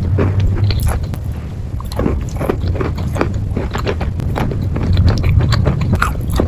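A person biting and chewing crunchy food: irregular crisp crunches, several a second, over a low steady hum.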